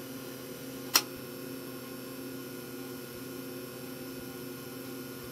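Steady electrical mains hum from the powered-up bench gear, with one sharp click about a second in.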